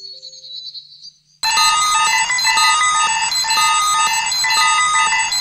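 A bird chirps briefly over a few soft held notes. About a second and a half in, an electronic alarm clock suddenly starts beeping loudly in a fast, repeating pattern of several-pitched beeps.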